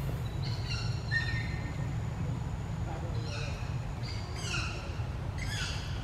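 A series of short, high animal calls, some falling in pitch, about a second apart over a steady low rumble.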